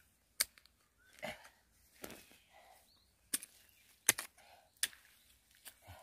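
A short-handled hoe chopping into wet, grassy soil: about five sharp strikes spread unevenly, with a few softer, duller sounds of mud being moved between them.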